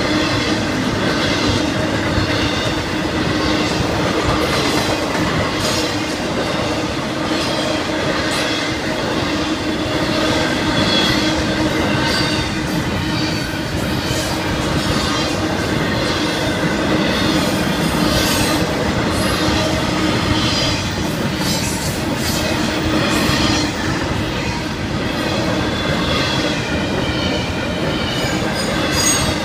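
Florida East Coast Railway intermodal freight train rolling steadily past over a grade crossing: continuous rumble and clickety-clack of the container and trailer cars' wheels on the rails, with some steel-wheel squeal.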